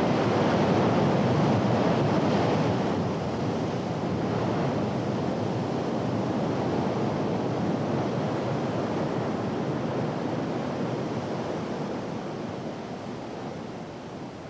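Ocean surf: a steady wash of breaking waves, loudest in the first few seconds and slowly fading near the end.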